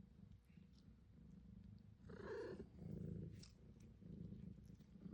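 Kitten purring, a low rumble that rises and falls, with a brief louder, higher kitten sound about two seconds in.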